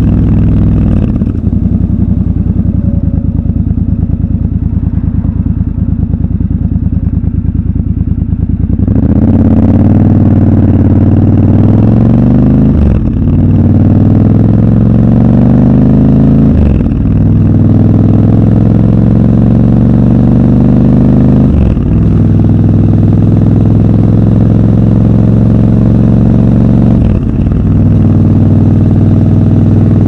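Triumph Scrambler 1200 XC's 1200 cc parallel-twin engine, heard raw from the rider's seat. It runs at low, steady revs, then accelerates hard from about nine seconds in. The pitch climbs in each gear, and four quick upshifts each make a brief dip in the sound.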